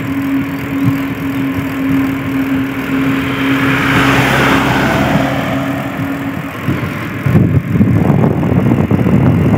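Riding noise on a mountain road: a steady low hum with a swell of hiss that rises and fades around the middle. About seven seconds in, wind starts rushing loudly over the microphone.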